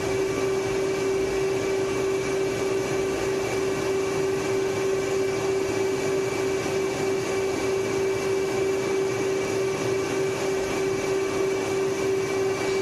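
F/A-18 Hornet jet engines running at taxi power, heard inside the cockpit: a loud, steady rush with a constant hum and a faint high whine over it.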